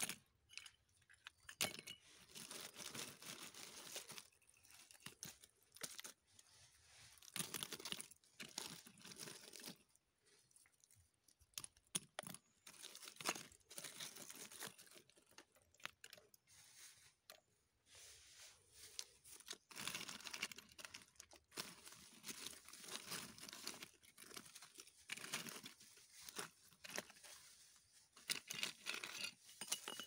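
Dry leaves and bark chips crackling and rustling as hands rummage through them and pick pieces out, in irregular spells with short pauses between.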